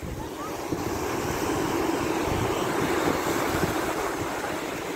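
Small sea waves breaking and washing up a pebble beach in a steady wash of surf that swells and eases, with wind buffeting the microphone.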